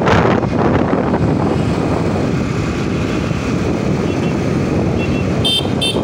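Wind buffeting the microphone, together with motorcycle engine and road noise, steady while riding along a road. A few short high-pitched tones sound near the end.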